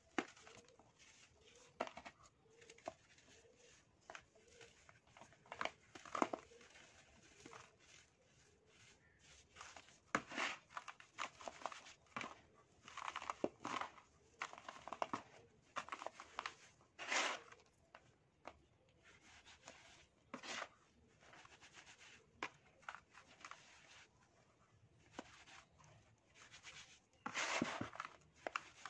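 Hands crumbling lumps of sand and letting it trickle through the fingers: irregular gritty crunches and rustles, a few louder crumbling bursts among quieter sifting.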